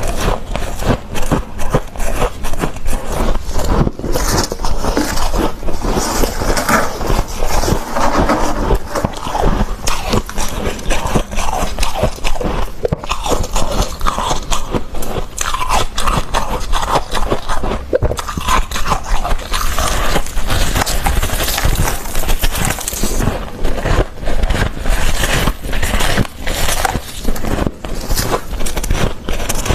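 Soft, fluffy freezer frost being scraped up, bitten and chewed: a dense, unbroken run of crunching and crackling.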